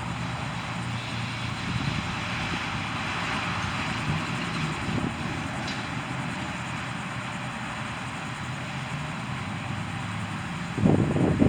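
Steady outdoor background noise with a faint low hum and no siren tone. Just before the end a louder sound starts abruptly.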